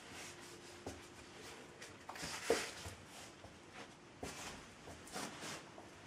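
Faint steady low hum in a small room, under several soft rustles and scrapes from a hand-held camera and meter being handled. The loudest rustle comes about two and a half seconds in.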